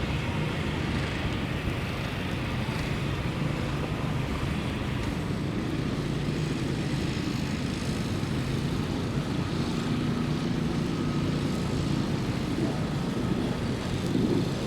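Steady city street ambience: a continuous low rumble of motor traffic with no single event standing out.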